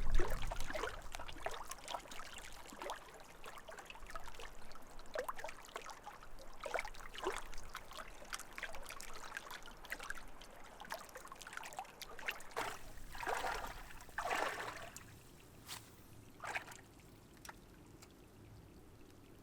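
Lake water splashing and trickling in irregular bursts, with a loud splash at the very start and a few longer splashes about two thirds of the way through, then quieter near the end.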